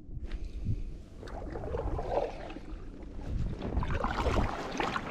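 Kayak paddle pulled through lake water, two strokes with a watery rush and splash, the first about a second and a half in and the second near the end.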